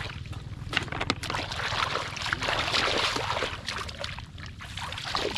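Shallow water splashing and sloshing irregularly, with sharp little splashes throughout and a steady low rumble underneath.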